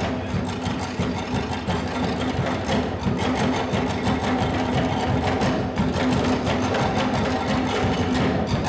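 Fast Polynesian drum music: a dense, rapid, even beat of wooden slit drums and other percussion.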